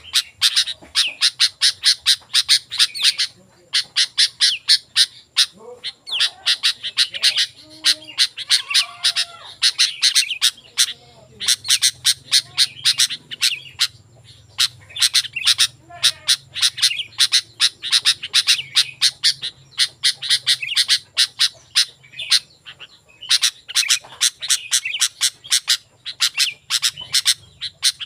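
Sooty-headed bulbul (kutilang) calling vigorously: runs of fast, sharp chattering notes lasting a few seconds each, broken by short pauses.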